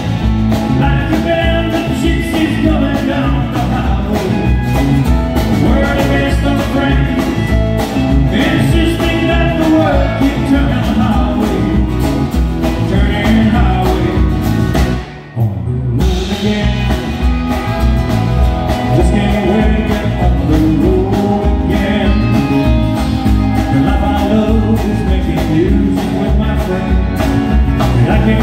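Live country band playing: a male singer over strummed acoustic guitar, electric guitars and drum kit, with a steady beat. The sound drops out briefly about halfway through, then the song carries on.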